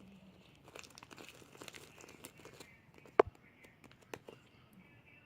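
Sticky homemade slime being squeezed and pulled apart, giving scattered small crackles and clicks, with one sharp loud snap about three seconds in and a smaller one a second later.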